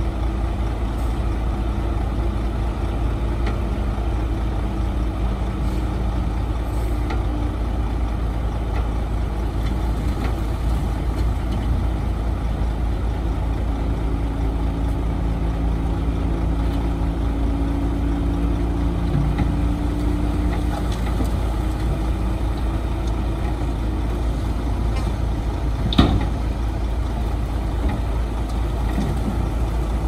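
Heavy construction machinery running steadily, a deep diesel rumble whose engine note shifts now and then, with one sharp clack late on.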